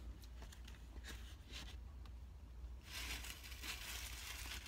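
A few small clicks and taps while eating, then from about three seconds in a steady crinkling of takeout food packaging being handled.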